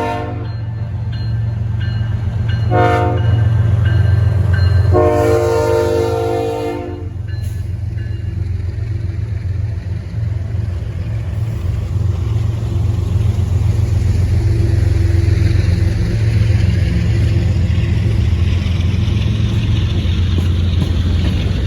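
Diesel freight locomotive horn: a blast tailing off right at the start, a short blast about 3 s in and a longer one from about 5 to 7 s. Under and after it, the locomotives' diesel engines and the train run with a steady low rumble.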